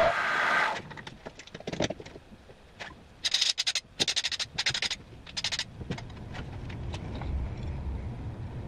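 A benchtop milling machine running, cutting off under a second in. It is followed by scattered clicks and four short scraping strokes in quick succession, from metal tooling being handled at the mill table, then a low steady hum.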